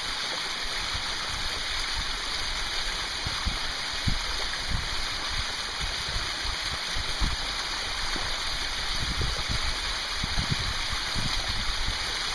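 Mountain stream water running and splashing over rocks in a small cascade: a steady hiss.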